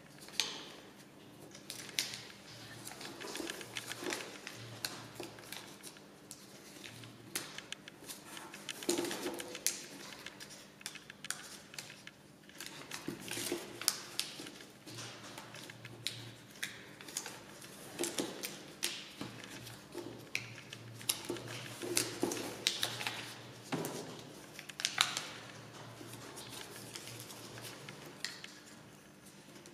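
A sheet of paper being bent and creased by hand, rustling and crinkling in short, irregular bursts, with occasional light taps.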